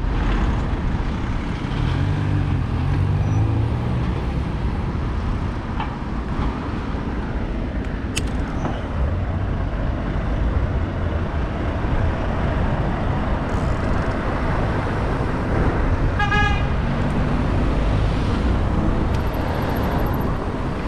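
Road traffic and wind noise heard from a moving bicycle, with the engines of passing vehicles. A brief high-pitched toot sounds about 16 seconds in.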